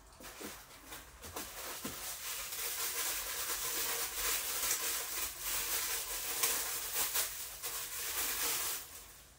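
Packaging rustling and crinkling as statue parts are unwrapped, a steady hissy rustle broken by many small crackles and a few light knocks.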